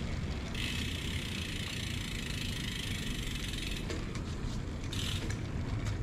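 Folding bicycle rolling over concrete with a steady tyre rumble. The rear freewheel ticks rapidly as the bike coasts, from about half a second in until about four seconds, and briefly again around five seconds.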